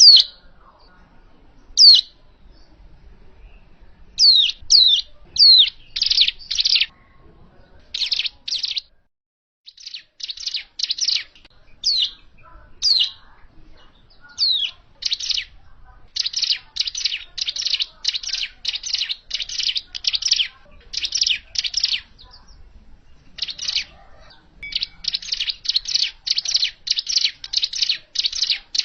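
Ciblek gunung, a mountain prinia, singing: sharp falling whistled notes at first, then fast runs of quickly repeated short chirps that grow denser in the second half. It is a recording of the bird's natural song used as a lure for trapping.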